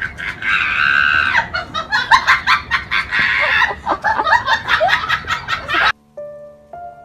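High-pitched human laughter, rapid and shrieking, with a held squeal about half a second in and again near three seconds. It cuts off abruptly near the end, and soft piano notes begin.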